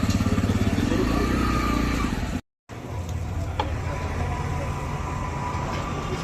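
Motorcycle engine running with a steady pulsing note. It breaks off in a short silent gap about two and a half seconds in, then continues as steady traffic-like noise with a low hum.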